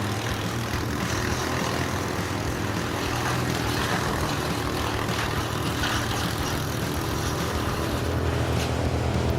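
Heavy forestry machine engine running steadily, with the sound rising somewhat near the end.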